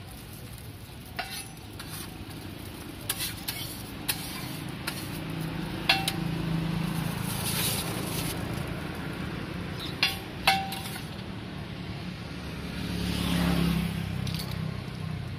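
Roti frying on a hot steel griddle with a steady sizzle. A metal spatula clinks sharply against the pan a few times with a short ring. A louder low swell of noise comes near the end.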